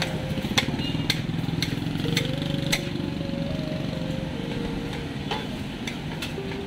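Metal spatula scraping and striking a large wok as fried rice is stir-fried. It gives sharp clicks about twice a second for the first few seconds, then one more a little later, over a steady low rumble.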